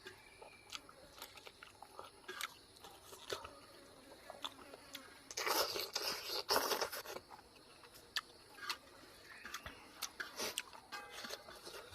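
Close-up eating sounds: a person chewing and crunching food, with scattered short bite clicks and a louder crunching stretch about halfway through.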